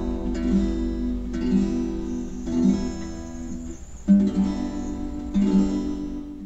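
Acoustic guitar being strummed, one chord after another, each left to ring, with a fresh strum about every second or so.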